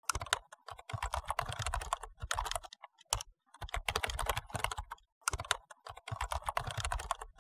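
Manual typewriter being typed on: quick runs of key strikes, each a sharp clack with a low thud, broken by short pauses.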